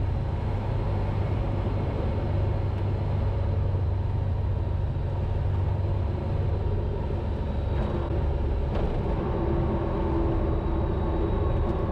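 FK9 Mark IV ultralight's piston engine and propeller running steadily at low landing power, heard from inside the cockpit, through the flare, touchdown and landing roll.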